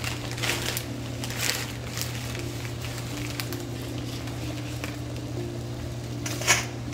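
A large pot of water at a rolling boil, bubbling irregularly over a steady low hum. Near the end a short, louder rush as dry spaghetti is dropped into the water.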